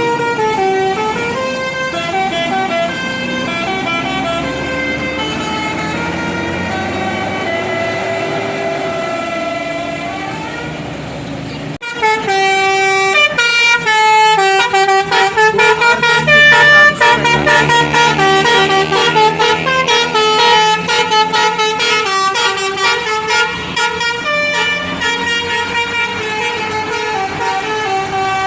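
Tour buses sounding Basuri telolet multi-tone musical horns, playing tunes of stepped notes over the running bus engines. About twelve seconds in, after a break, the horns turn louder, with a fast run of short, choppy notes.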